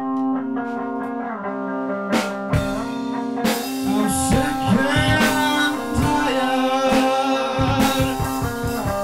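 Music: a song with guitar and a singing voice over held chords. The drum beat drops out and comes back in near the end.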